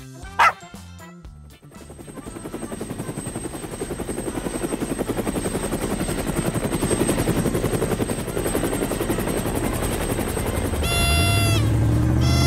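Cartoon toy-helicopter sound effect: a fast, even rotor chop that builds and grows louder over several seconds as it takes off. It is preceded by a single short dog bark just after the start. Near the end come a short honking tone and a car engine starting to rev up.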